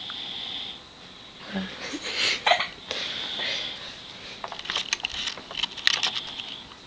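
A person's breathy noises close by: a hissing breath at the start, a cluster of short nasal puffs and sniffs from about a second and a half in, then a run of small clicks and puffs near the end.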